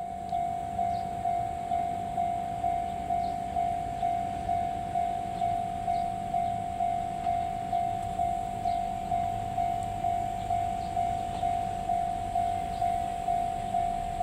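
Japanese level-crossing warning bell ringing, one electronic clang a little more than twice a second, warning that a train is approaching.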